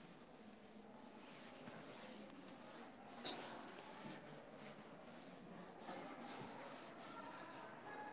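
Faint rubbing of a duster wiping a chalkboard clean, with a few louder swipes.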